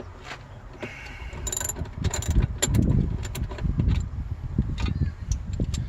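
Ratchet wrench clicking in short, irregular runs while a nut on the battery hold-down bracket is being tightened.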